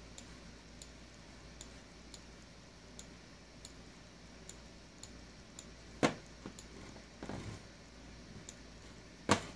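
Clicks of a computer mouse: faint irregular ticks, one or two a second, with two much sharper clicks about six seconds in and near the end, and a short rustle between them.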